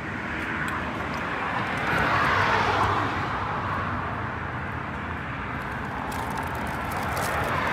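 Road traffic on a city street, with a vehicle passing that swells about two seconds in and then fades. Near the end, a plastic food wrapper is crinkled in the hands.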